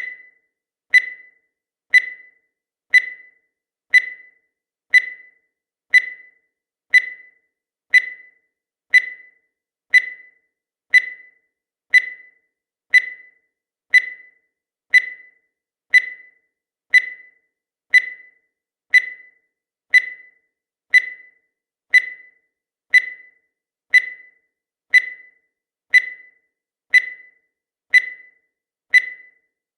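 Countdown timer sound effect: a short, high tick once every second, each one dying away quickly.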